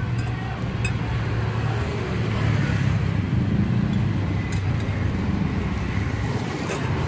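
Road traffic passing close by: motorcycles and a minibus driving past, a steady low engine hum that grows a little louder about three to four seconds in as the minibus goes by.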